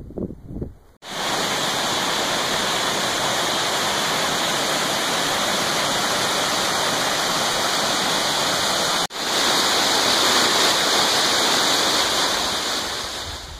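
Rushing white water of a mountain cascade tumbling over rocks: a steady rush that starts about a second in, breaks off for an instant about nine seconds in, comes back a little louder and brighter, and fades near the end.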